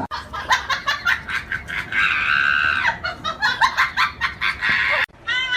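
A chicken clucking in quick short calls, with one longer held squawk about two seconds in.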